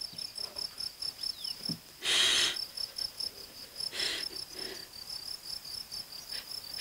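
Crickets chirping steadily in rapid, even pulses, several a second. A short breathy rush of sound comes about two seconds in, and a fainter one about four seconds in.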